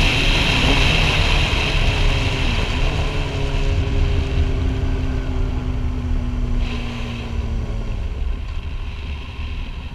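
Sportbike engine running at a steady pitch with wind rushing over the helmet-mounted microphone. The engine note dips briefly about two and a half seconds in, and near the end it drops away and the wind rush fades.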